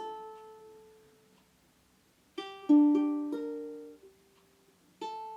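Ukulele chords played slowly, each chord struck with its strings sounding one after another and left to ring and fade, with pauses of about a second between them: slow practice of changing from one chord to the next.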